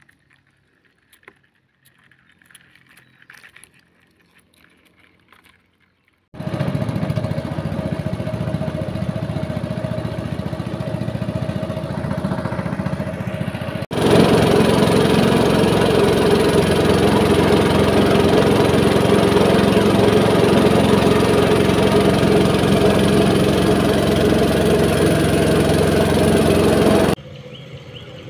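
Small boat engine running steadily, heard from aboard the moving boat. It comes in suddenly about six seconds in, after faint scattered clicks, gets louder about halfway through, and drops away shortly before the end.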